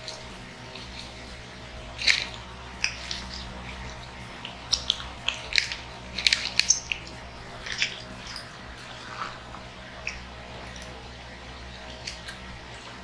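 Close-up eating sounds of people chewing burgers and chicken nuggets: irregular wet mouth smacks and finger-licking, busiest in the middle.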